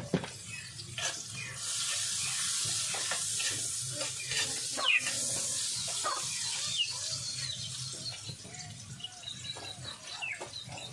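Food frying in margarine in a pan: a steady sizzle that swells about a second and a half in and eases after about six seconds, with a few short chirps over it.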